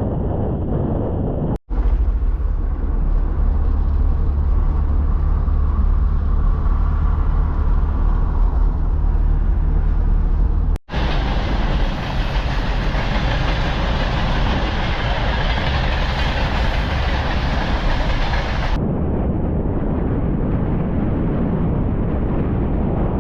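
Strong wind buffeting the microphone with a heavy rumble, in several short clips cut together, each with a slightly different sound.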